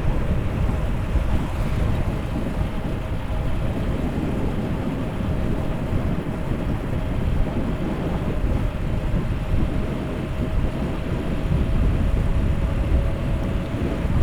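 Wind rushing over the microphone with road noise from a moving vehicle: a steady, rumbling noise heaviest in the low end, with a faint steady hum running underneath.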